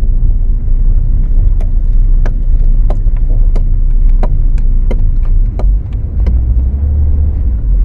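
Car driving, with a steady low road and engine rumble and a string of sharp clicks repeating about every two-thirds of a second.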